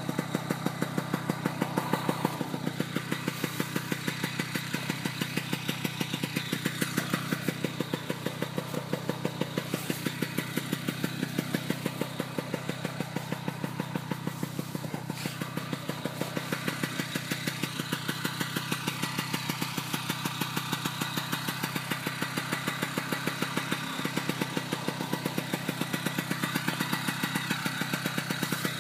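A small engine idling steadily, with an even pulse of about four to five beats a second.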